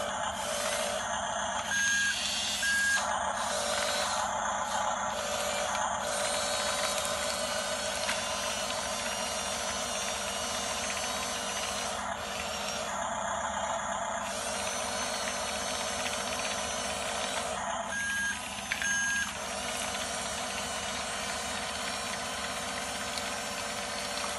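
Electronic sound effects from an RC toy bulldozer's sound module: a simulated engine with short double beeps, switched on suddenly and repeating as a loop.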